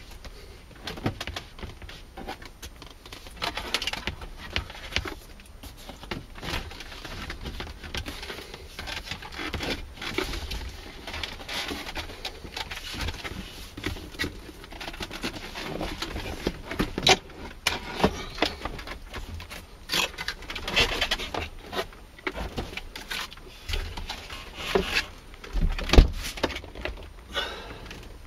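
Hands handling the plastic trim and wiring of a car interior: scattered clicks, taps and rustles, with one heavier thump near the end.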